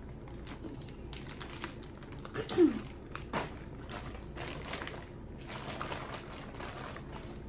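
Plastic seafood-boil bags rustling and crinkling, with short clicks and taps as hands dig through the seafood. A brief falling vocal sound about two and a half seconds in.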